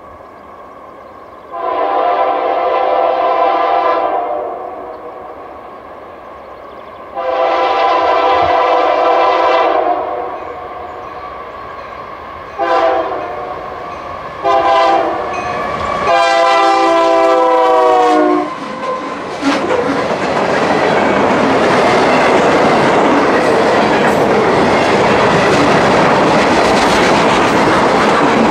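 Freight locomotive air horn sounding the grade-crossing signal: two long blasts, a short one and a final long one that falls slightly in pitch. Then the steady rumble and clatter of the train's wheels on the rails as it passes close by.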